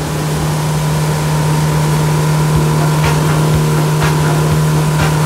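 Outboard motor running steadily at speed on a motorboat, a constant drone over the rush of wind and water spray. Light knocks come about once a second in the second half.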